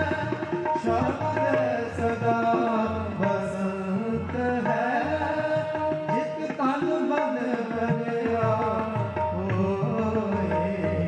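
Sikh kirtan: a man singing a hymn with tabla accompaniment over steady held notes.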